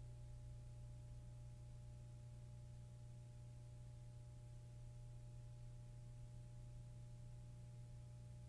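Near silence with a faint, steady low electrical hum and two faint steady higher tones underneath it.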